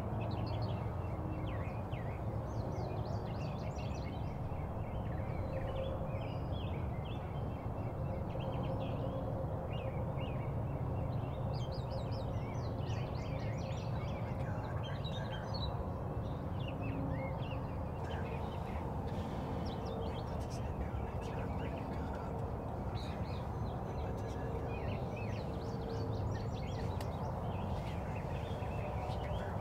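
Small songbirds chirping and trilling in many short, scattered calls over steady low background noise.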